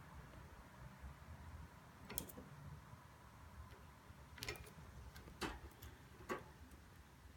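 A budgie's beak tapping: four or five light, separate clicks a second or so apart.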